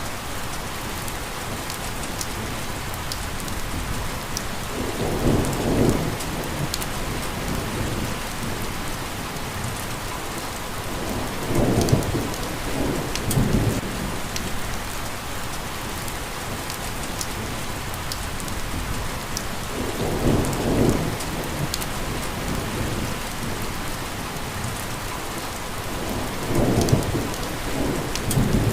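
Steady heavy rain, with low rolls of thunder swelling up about four times, several seconds apart.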